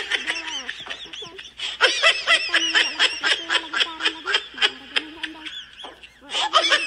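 Rapid chattering, bird-like calls: many short pitched notes rising and falling several times a second, with a brief dip near the end.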